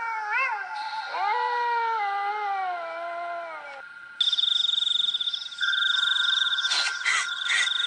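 Dog howling in long wavering calls that glide up and down in pitch. About four seconds in, a shrill steady trill starts suddenly, with a few sharp crackles near the end.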